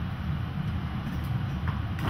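Dyson vacuum cleaner running with a steady low rumble, with a few faint clicks.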